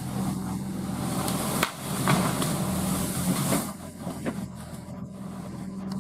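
Excavator's diesel engine running steadily under working load, with sharp cracks and knocks over it, one loud one under two seconds in; the engine and high hiss drop quieter past the middle.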